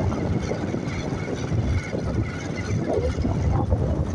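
Wind buffeting the microphone, an uneven low rumble that rises and falls in gusts.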